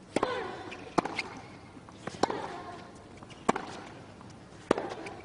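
Tennis rally: a ball struck back and forth by rackets, five sharp hits about a second and a quarter apart, with fainter clicks between them.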